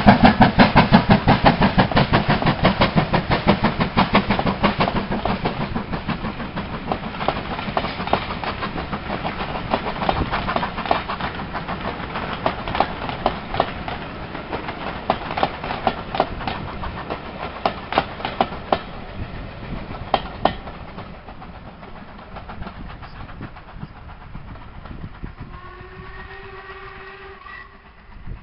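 LMS Stanier 8F 2-8-0 steam locomotive passing close, its exhaust beating quickly and loudly, then its coaches clattering over the rail joints and fading as the train draws away. Near the end a locomotive whistle sounds a steady note for a few seconds.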